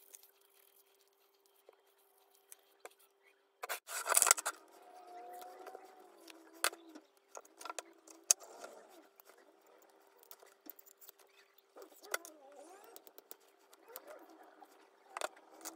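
Hand tools and small metal gun parts worked at a bench: a loud rasping scrape about four seconds in, then scattered clicks, taps and squeaky scrapes over a faint steady hum.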